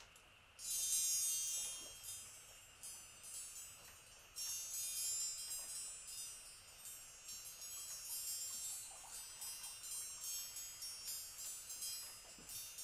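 Small, high-pitched chimes played by hand as improvised percussion. A bright ringing cluster sets in about half a second in and fades over a few seconds. From about four seconds on it turns into a quick, irregular ripple of many light strikes.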